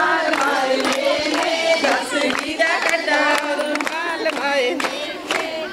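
A crowd of women singing a Punjabi boli together in chorus, with hand-claps keeping time.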